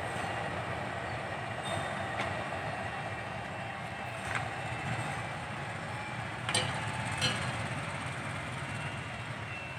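KAI CC206-class diesel locomotive running as it rolls slowly forward hauling loaded ballast hopper wagons, a steady engine and wheel rumble. A few sharp clacks of wheels over rail joints and points come in the second half, the loudest two close together.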